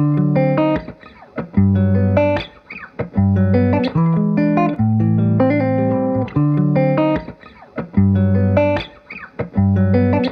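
Background music: a light plucked-guitar tune over a bass line, playing short repeating phrases with brief gaps between them.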